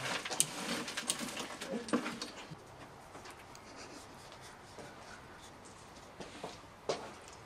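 Hot charcoal embers being stirred and spread in a round metal tray with a metal tool: a rapid run of crunching, clinking scrapes for the first two or three seconds, then a few faint clicks as the coals settle.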